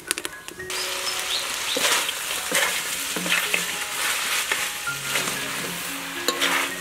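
Meat sizzling as it is stir-fried in a metal wok, with a metal spatula scraping and turning it about once a second. The sizzle starts suddenly about a second in.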